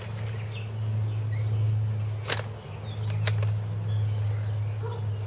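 A steady low hum runs throughout, with two short sharp handling noises about two and a half seconds in as pottery sherds and a plastic zip bag are handled on a tabletop. Faint bird chirps sound now and then.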